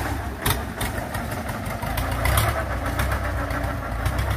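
Long-tail boat engine running steadily under way, its long propeller shaft churning the river water. A couple of short sharp clicks sound in the first half.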